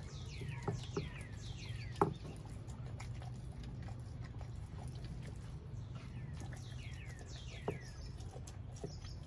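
A young pit bull chewing a whole raw chicken, with a handful of sharp cracks and clicks, the loudest about two seconds in and again near eight seconds. A bird calls in series of quickly falling notes behind it, over a steady low hum.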